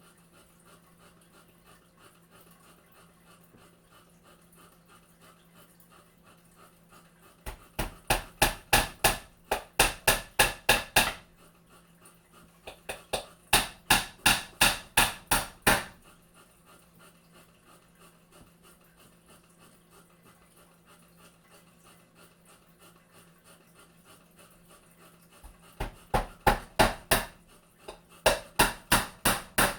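Hammer tapping a nail into a wooden frame in quick, even strokes, about four a second, in four runs of a few seconds each.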